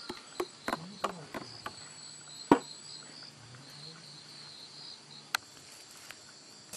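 Insects buzzing steadily, a high wavering drone, under a scatter of sharp clicks and taps that come quickly in the first couple of seconds, the loudest about two and a half seconds in, with a few more near the end.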